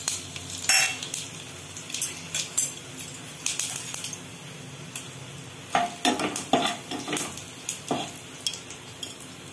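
Whole spices (panch phoron, cumin, dried red chillies, clove, cardamom) crackling and sizzling in hot mustard oil: tempering (tadka). Sharp little pops all through, with a metal spoon stirring and knocking against the pan about six to eight seconds in.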